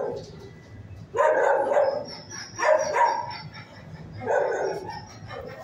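Dog barking in a shelter kennel: three drawn-out barks about a second and a half apart.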